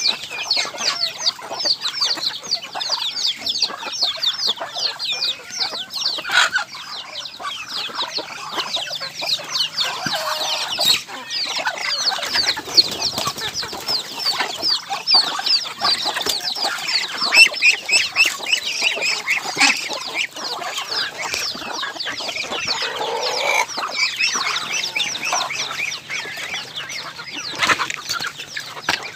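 A flock of free-range chickens clucking, with a constant chorus of rapid, high, falling chirps over it.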